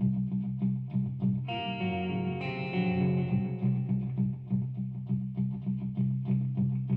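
Instrumental rock jam led by electric guitar, playing a repeated low riff in a quick, even pulse. A higher ringing chord is struck about one and a half seconds in and dies away over the next two seconds.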